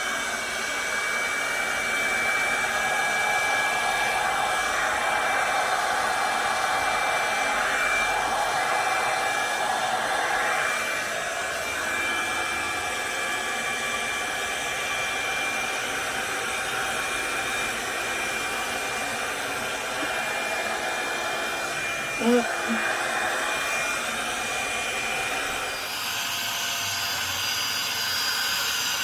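Revlon One-Step hot-air dryer brush running steadily: the blow of its fan with a steady high motor whine over it. About 22 seconds in there is a brief louder sound, and near the end the sound changes abruptly.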